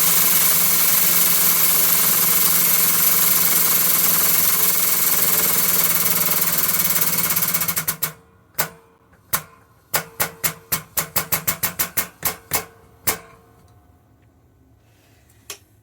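Air-powered shop press running with a steady hissing hum while pressing a bearing race home, stopping abruptly about eight seconds in. A quick run of about fifteen sharp clicks follows over the next five seconds, then one more click near the end.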